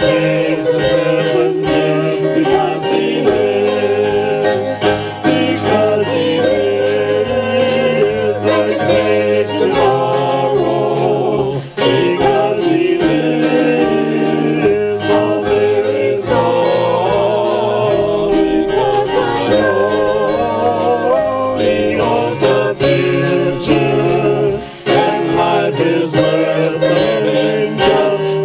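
A worship song: singing with instrumental accompaniment, sustained low notes under the melody throughout.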